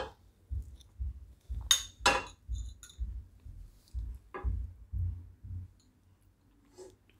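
Kitchen utensils clinking against a kadai: two sharp clinks about two seconds in with a short ring after them, then a softer tap a couple of seconds later.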